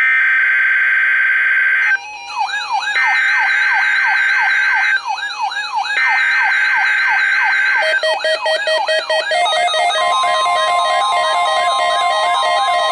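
NOAA Weather Radio emergency alert signalling at the start of a weekly test: three buzzy data bursts of about two seconds each, broken by wailing electronic siren tones that rise and fall about twice a second. From about eight seconds the wailing becomes continuous, and a steady tone joins about ten seconds in.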